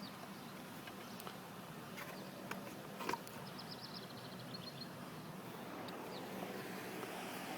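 Faint background hiss with a few light clicks and knocks from tools being handled. About three and a half seconds in there is a quick run of faint high chirps.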